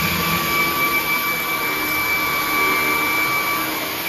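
Hart 20V cordless stick vacuum with a brushless motor running steadily while vacuuming the floor: a steady high whine over a rush of air.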